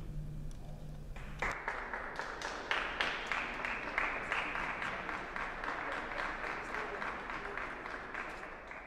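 The wind band's final chord rings away in the hall, then audience applause breaks out about a second and a half in and goes on steadily, starting to fade near the end.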